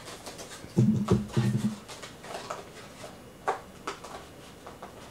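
Scissors snipping through a cardboard toy box and the box flaps being handled, with a few sharp clicks and rustles. About a second in there are a few brief low vocal sounds.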